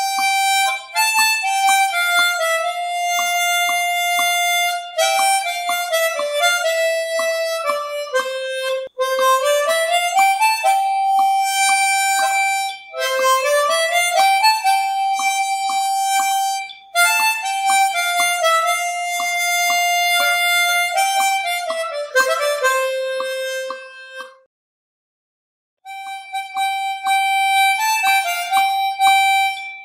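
Background music: a melody of long, gliding notes over a light, steady beat. It breaks off for about a second near the end, then starts again.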